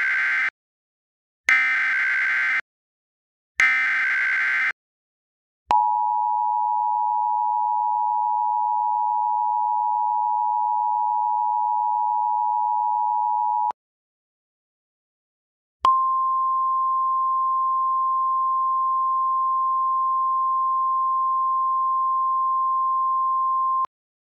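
Emergency Alert System opening for a weather warning. First come the tail of one and then two more SAME header data bursts, each about a second long. Then the two-tone EAS attention signal holds for about eight seconds, and after a two-second gap the single steady weather-radio alert tone sounds for about eight seconds.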